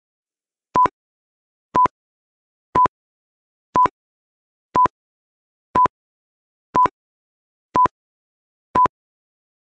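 Countdown timer beeping: a short electronic beep of one steady pitch, once a second, nine in a row with silence between.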